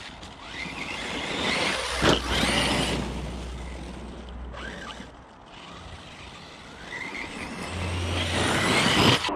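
Spektrum 1250kv brushless motor of an Arrma Notorious RC monster truck whining up in pitch as the truck accelerates, twice, with tyres scrabbling over dirt and a sharp knock about two seconds in.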